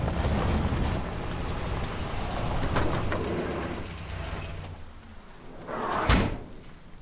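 Low, steady rumble of a van's engine that dies away about four and a half seconds in. Near the end the van's sliding side door runs along its track and bangs to a stop.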